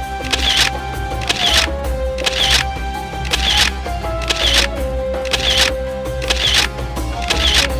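Background music with a steady beat about once a second over a held melody line that slides between notes and a low bass.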